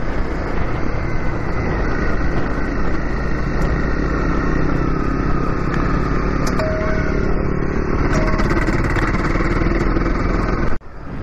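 Honda CRF250L's single-cylinder four-stroke engine running steadily as the bike rides a dirt track, heard from the rider's helmet. The sound drops out for a moment near the end.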